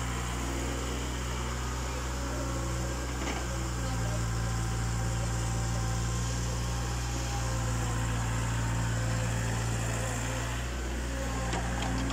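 Diesel engine of a small KATO hydraulic excavator running at a steady pitch while the machine digs and swings loads of soil, with a couple of faint knocks.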